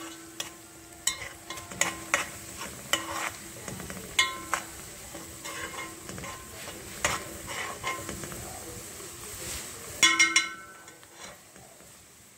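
Chopped onion frying in ghee and oil in a metal pot, sizzling, while a spoon stirs it and clinks against the pot's sides, the onion taken to a deep brown on purpose for sayadiyah rice. About ten seconds in comes a quick run of sharp, ringing clinks.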